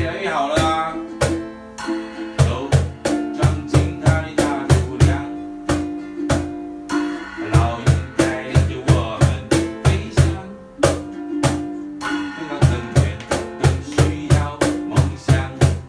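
Cajón played by hand in a steady rhythm of deep bass strokes and sharper slaps, accompanying a strummed ukulele.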